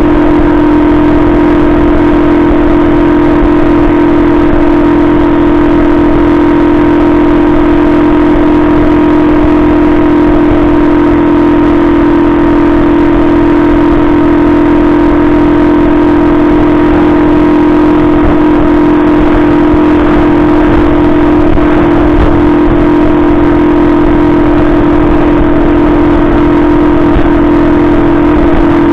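Benzer Yankee 50cc moped's single-cylinder four-stroke 139FMB engine running at a steady pitch while cruising, heard from the bike itself.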